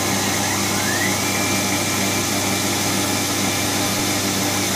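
Milling machine spindle motor running steadily, with a high whine that rises about half a second in, holds, and drops away near the end as the cutter is fed down into the metal plate.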